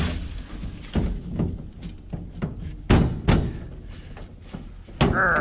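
Metal clunks and knocks from the latches of an old steel truck hood being worked by hand. Two loud knocks come close together about three seconds in, with lighter clunks before and after.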